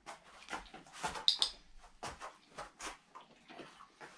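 A dog moving about on a wooden floor and mat, its paws and claws making scattered light clicks and taps. About a second and a half in comes a louder, sharp double click.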